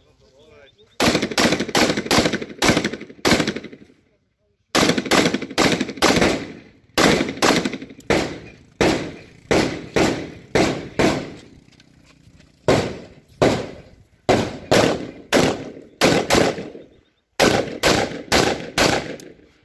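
Rapid strings of gunshots from an AR-15 rifle, about two to three shots a second, with short pauses between strings as the shooter engages one target after another.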